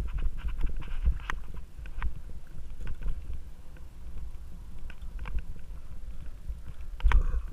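Mountain bike ridden over a sandy dirt singletrack: a heavy low rumble of tyres and frame jolting over the ground, with scattered clicks and rattles. A louder cluster of knocks comes about seven seconds in.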